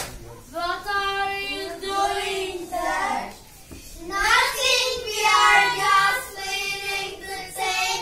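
A child singing two phrases with long held notes, with a short break about three and a half seconds in.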